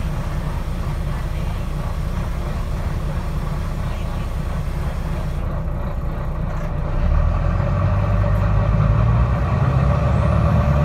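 Wright Eclipse Gemini 2 double-decker bus heard from inside, its engine idling while stopped in traffic; about seven seconds in the engine note deepens and grows louder as the bus pulls away.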